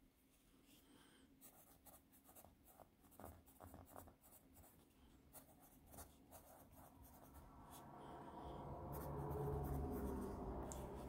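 Reliance Ravenwood No. 2 pencil scratching on graph paper in short strokes as it shades small swatches and writes words. From about seven seconds in, a low hum swells up underneath and is loudest near the end.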